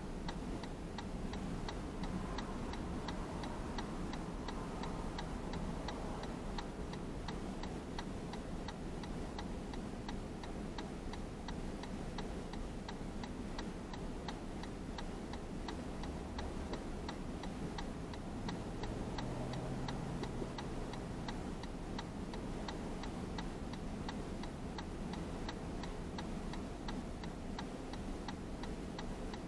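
A car's turn-signal indicator ticking at an even pace inside the cabin while the car stands still, signalling a turn. A low steady hum sits underneath.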